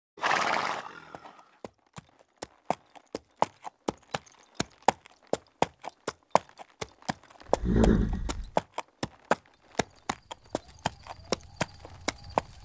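Horse hooves clip-clopping at a walk, about three to four hoof strikes a second, with a horse's snort at the start and a louder, deeper snort about eight seconds in.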